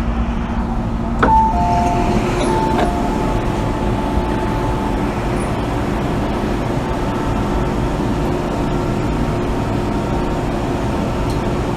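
Inside an MTR M-Train car in motion: steady rumble of wheels and running gear with a low steady motor hum. About a second in comes a click and a short two-tone electronic chime, high then low, played twice.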